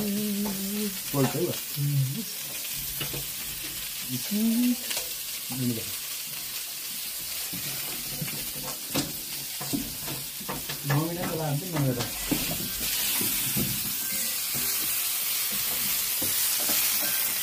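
Meat sizzling on a hot barbecue plate: a steady frying hiss that grows louder about two-thirds of the way through, with a few short clicks.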